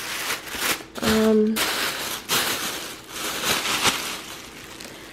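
Plastic grocery bags rustling and crinkling as groceries are taken out of them, with a few light knocks of items being handled. A brief voice sound comes about a second in.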